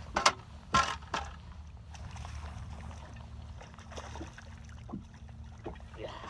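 Steady low hum of a fishing boat on the water, with three sharp knocks in the first second or so and a few lighter clicks later.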